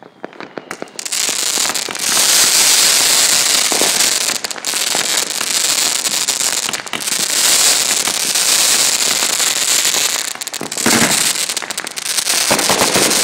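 Fireworks going off close by: a few sharp pops at first, then about a second in a dense, continuous crackling and hissing, with a couple of brief lulls.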